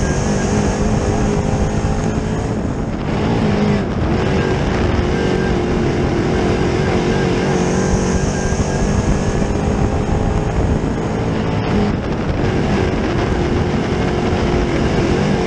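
A dirt late model's 604 crate small-block V8 running hard at racing speed, heard from inside the cockpit. The engine note wavers and dips briefly twice, about three seconds in and again near twelve seconds, as the throttle eases.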